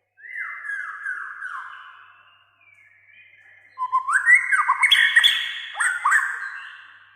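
White-rumped shama (murai batu) singing: first a phrase of repeated falling whistled notes, then after a short pause a louder, busier phrase of quick notes and sharp clicking calls.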